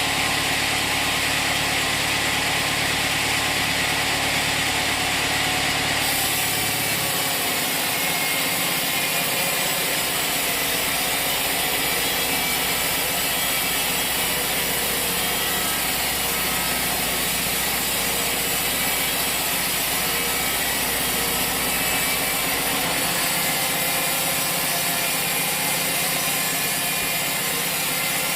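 Sawmill machinery running steadily: an engine with saw cutting noise. The tone shifts about six seconds in, and the deepest hum drops away.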